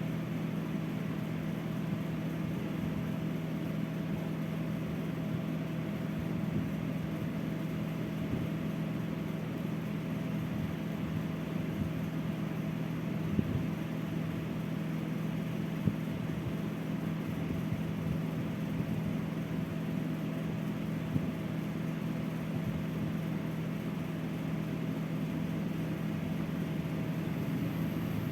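Steady mechanical hum from a running motor or appliance, with a few faint ticks.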